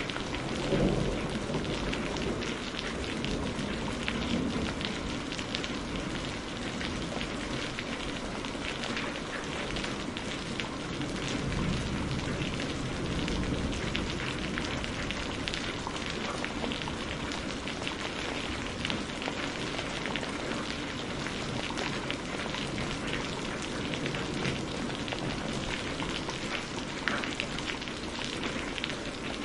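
Steady rain falling, with a low rumble of thunder about a second in.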